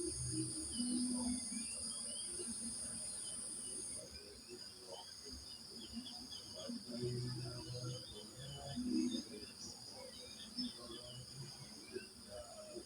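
Crickets trilling steadily with birds chirping and calling here and there; a higher-pitched trill drops out about four seconds in. Short low calls sound now and then underneath.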